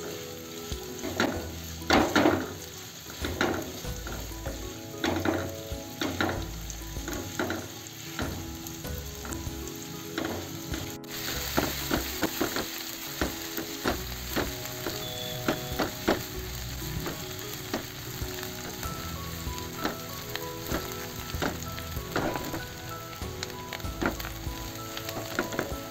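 Sliced onions sizzling as they sauté in desi ghee in a granite-coated kadhai, with repeated strokes of a silicone spatula stirring them through the pan.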